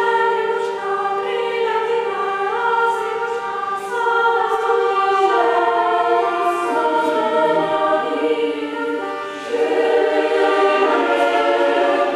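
Mixed choir singing a polyphonic piece with accordion accompaniment, a held low note sounding under the voices for the first few seconds.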